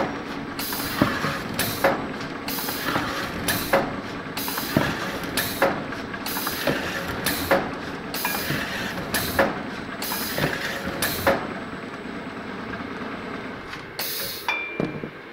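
Pneumatic paper-core cutting machine cycling: repeated short bursts of air hiss with sharp clicks, about one or two a second, over a steady machine noise. The bursts stop about eleven seconds in, and one more burst comes near the end.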